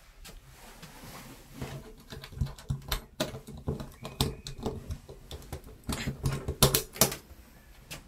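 A glass interior door and its added safety lock rattling and clicking, in a quick, irregular run of sharp clicks and knocks that starts about a second and a half in and is loudest near the end.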